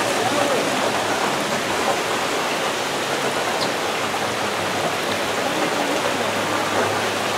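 Steady, even hiss of flash-flood water: heavy rain and running floodwater, with no breaks or separate splashes.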